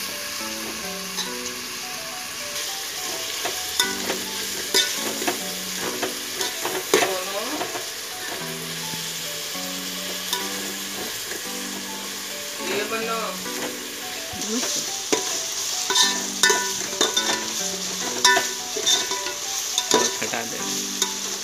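Sliced onions frying in hot oil in a large aluminium pot with a steady sizzle, while a metal spatula stirs them and clicks and scrapes against the pot. The onions are being fried until brown.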